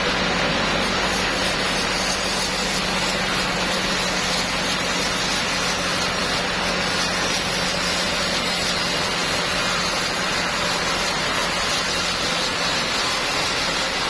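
Sawmill machinery running steadily: a continuous loud noise with a steady low hum, with no distinct cuts or knocks.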